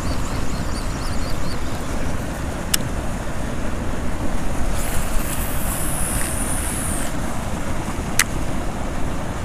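Steady low rumble of wind buffeting the microphone over rushing tailrace water, with two sharp clicks, one about three seconds in and one about eight seconds in.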